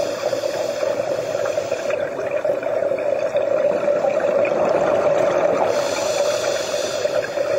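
Underwater sound picked up through a diving camera's housing: a steady hum over a haze of water noise.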